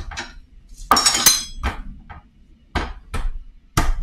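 Garlic cloves being cut on a wooden cutting board: a series of irregular sharp knocks of a blade on the board, with a ringing metallic clink about a second in.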